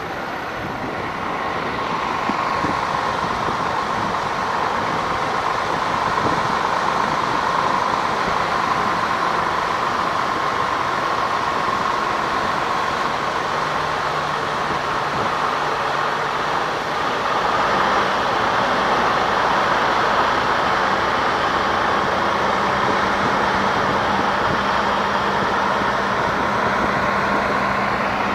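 A road vehicle driving with its engine running steadily under a constant rushing noise, plus a steady whine; the level swells over the first couple of seconds and the engine note shifts slightly a couple of times.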